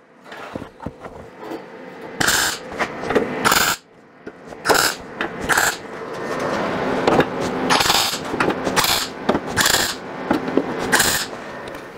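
Electric welder laying short tack welds on thin sheet steel: about nine brief bursts of arc crackle, irregularly spaced, starting about two seconds in. This is a sheet-metal tailgate panel being tacked into its frame every inch and a half.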